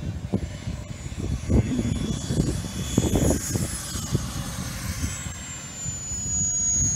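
Radio-controlled model airplane making a low pass, its high engine whine slowly falling in pitch as it goes by and moves away, over an uneven low rumble.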